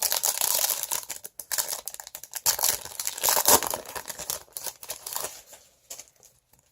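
Foil booster pack wrapper being torn open and crinkled by hand, a dense irregular crackle that dies away after about five seconds.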